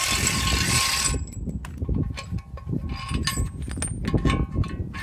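Ryobi cordless impact wrench running for about the first second, backing the nut off the threaded rod of a wheel bearing press once the new bearing is pressed fully into the knuckle. After that come short metal clicks and knocks as the press parts are handled.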